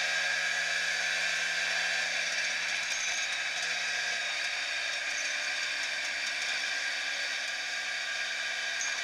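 Motor scooter riding at a steady speed: engine and wind noise heard as a steady whirring hiss, thin and without much low end, through an action camera mounted on the handlebars.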